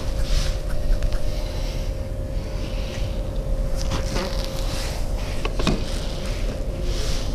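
Hands rubbing over skin in massage strokes, a soft swishing about once a second, with two sharp clicks about four and five and a half seconds in, over a steady low hum.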